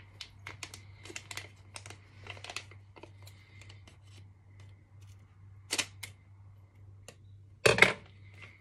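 Scissors snipping through a paper sachet, with the packet crinkling: a quick series of short sharp clicks over the first three seconds, two more around six seconds, then a louder knock near the end as the scissors are set down on the counter.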